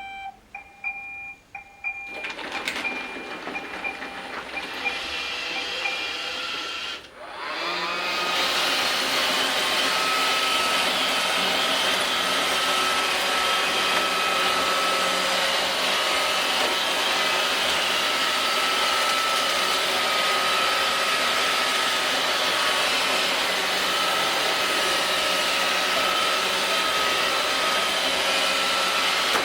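iRobot Roomba robot vacuum: a few short electronic tones, then its motors build up, drop out briefly about seven seconds in, and from about eight seconds it runs steadily with a steady whine, cleaning the door mat.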